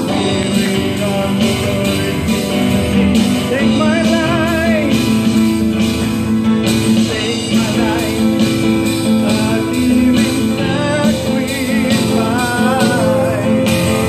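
Live worship song: a man singing with vibrato into a microphone over acoustic guitar and keyboard.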